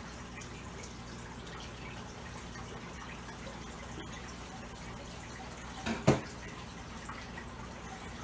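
Water dripping and trickling off a handful of floating fern (Ceratopteris cornuta) as it is lifted out of the aquarium, over a steady low hum. A single sharp knock about six seconds in.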